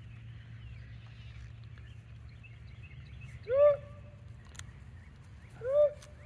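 A farm animal calls twice, each a short loud cry that rises and falls in pitch, about two seconds apart, while small birds chirp faintly throughout.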